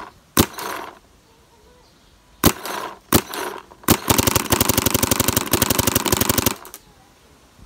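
Angel LCD paintball marker with a PM7/PMR conversion board firing: four single shots, then a fast string of about twelve shots a second for some two and a half seconds that stops suddenly.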